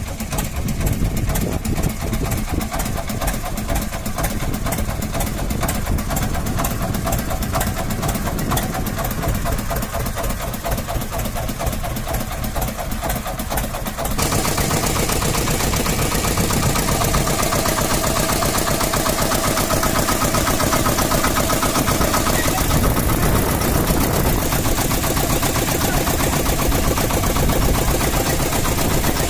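The ferry boat's engine runs with a rapid, even chugging. About halfway through, it grows louder and hissier.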